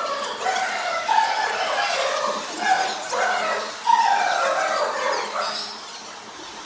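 Dogs yelping and whining: a run of short, high, pitched calls, several of them falling in pitch, that fades out near the end.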